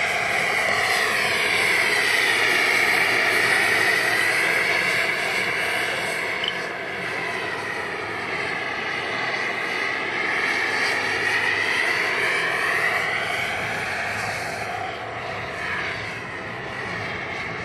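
Small gas-turbine engine of a jet-powered RC helicopter running in flight: a steady high whine over a rushing hiss. The whine swells and its tone sweeps down and back up twice as the helicopter passes the listener.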